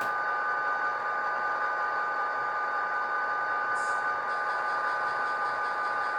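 ESU LokSound decoder in a KATO HO scale SD45 model playing diesel locomotive engine sound through its small speaker: a steady drone with a high whine, and a brief hiss about four seconds in.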